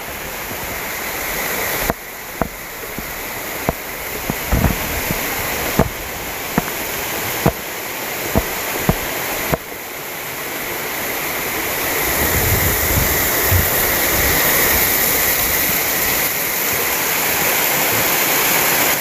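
Waterfall rushing steadily, growing louder through the second half, with footsteps about once a second in the first half.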